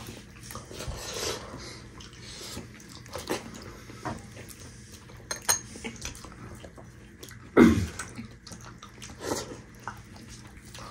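Eating by hand at close range: soft, wet chewing and mouth noises and the squish of fingers working soft dhido, with scattered small clicks. One louder, short mouth sound with a falling pitch comes about seven and a half seconds in.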